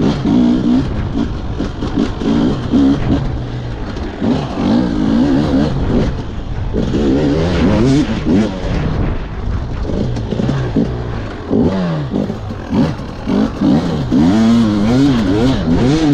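KTM EXC enduro motorcycle engine revving up and down with the throttle, its pitch rising and falling again and again, with frequent knocks mixed in.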